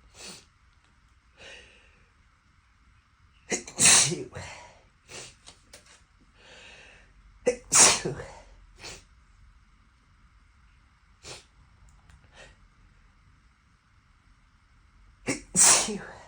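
A man sneezing three times in full, hard sneezes, roughly four seconds apart and then again after a longer pause near the end, with softer short noises in between. The sneezes are set off by sniffing a strongly scented, unlit musky rose candle.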